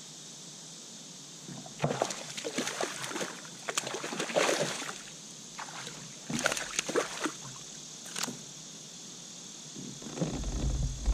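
Hooked bass thrashing and splashing at the surface beside a kayak in several splashy bursts, with a heavier, lower knocking in the last second as the fish is lifted. Steady insect buzz in the background.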